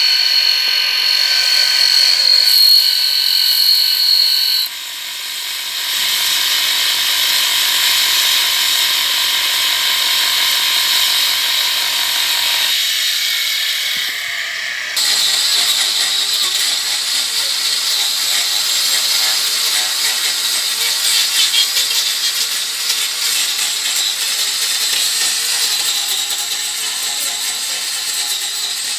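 Electric angle grinder running free with a steady whine that changes pitch twice in the first half. From about halfway through it grinds into a wooden stump with a rougher, louder noise.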